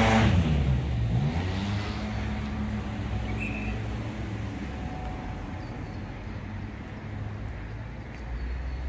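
A car drives past, its engine note falling in pitch as it moves away during the first second or so; a steady low engine hum carries on afterwards.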